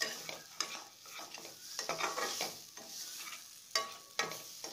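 Flat metal spatula scraping and knocking against a metal kadhai as paneer cubes are stirred through frying masala, over a light sizzle. The scrapes come at uneven intervals, with two sharp strokes near the end.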